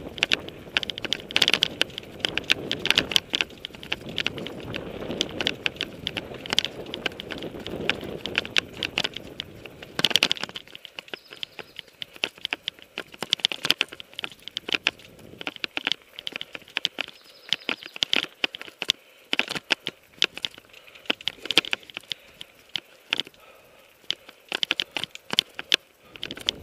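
Mountain bike climbing a dirt and gravel trail, heard from a helmet camera: tyres crunching over grit and stones, with rapid irregular clicks and rattles. A low wind rumble in the first part stops about ten seconds in.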